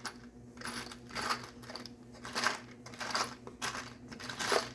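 Small metal parts clinking and rattling as they are rummaged through in a container, in a run of short irregular clatters.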